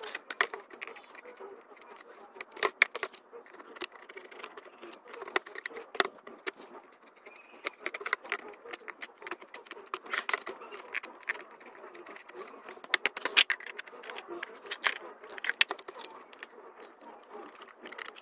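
A utility knife cutting into a plastic bucket, with irregular sharp clicks and scrapes as the blade works through the plastic and the bucket is turned in the hands.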